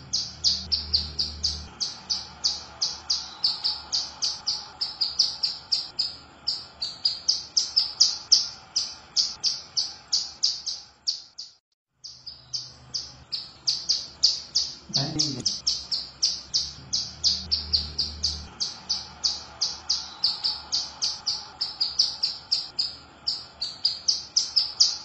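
Female ciblek gunung, a prinia, calling in a fast, unbroken series of short high chirps, several a second. The series breaks off for a moment about eleven and a half seconds in, then resumes.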